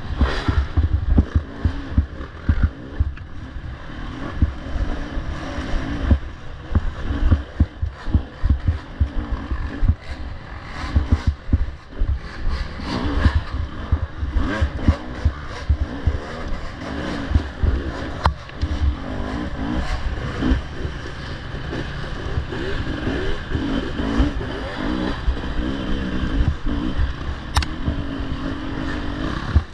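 Off-road dirt bike engine running and revving up and down as it is ridden, with frequent thumps and clatter throughout.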